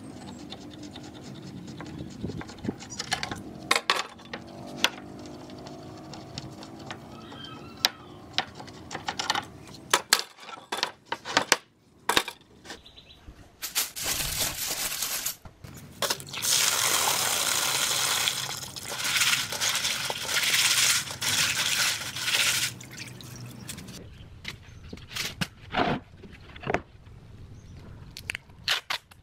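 Tap water running into a steel sink for several seconds in the middle, with small seashells clattering against each other in a plastic colander as they are rinsed by hand. Scattered sharp clicks come before and after.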